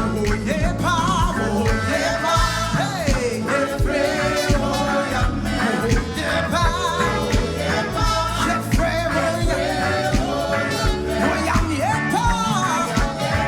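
Live gospel praise-and-worship music: a band with steady drums and bass, with singing over it.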